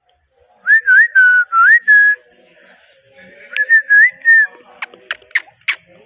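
Indian ringneck parakeet whistling: a run of about five clear whistled notes with rising slides, a short pause, a second run of about four notes, then four short sharp chirps about a third of a second apart.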